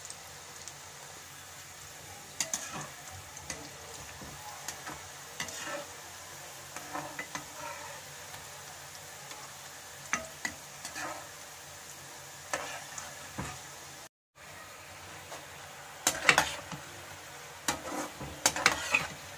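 Potato snacks deep-frying in hot oil in a kadhai: a steady sizzle with crackles, and a metal spatula scraping and clinking against the pan, loudest in two spells near the end.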